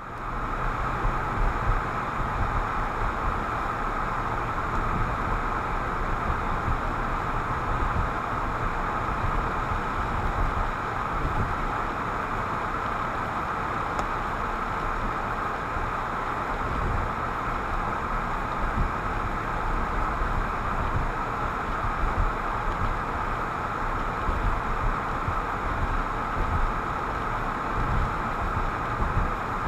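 Steady noise inside a moving car's cabin: tyre, wind and engine rumble while driving on winter roads.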